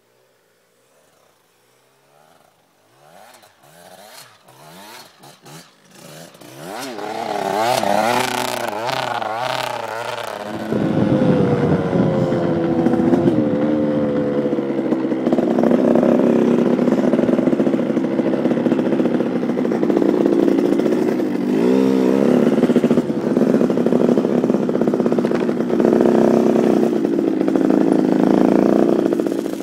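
KTM 85 SX two-stroke motocross bike engine. It starts faint and grows louder with the revs swinging up and down, then runs loud and steady at high revs from about ten seconds in, and cuts off suddenly at the end.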